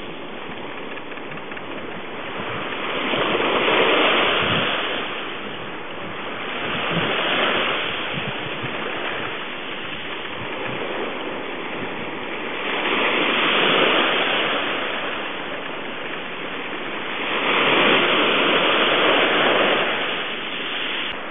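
Ocean surf: waves rushing in and washing back, the noise swelling and falling back every few seconds.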